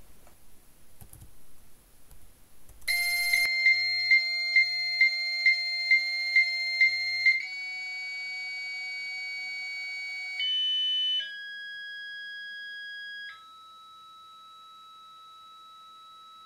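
E-Tech 56K V.34 fax modem answering on its own through its built-in speaker, going off-hook with no caller on the line. After a few faint clicks it sends a high steady answer tone with a short pip about twice a second, then steps through a series of different steady handshake tones. It ends on a quieter, lower steady tone.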